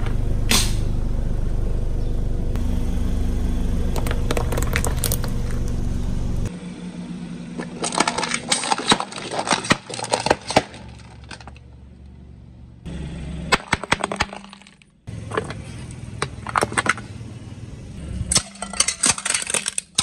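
Car tyre rolling onto and crushing things: first a steady low rumble with a few cracks as it presses into a heap of foamy mush, then after a cut, plastic cups crackling and snapping under the tread. Near the end, brittle plastic cracks and shatters in a quick run of snaps.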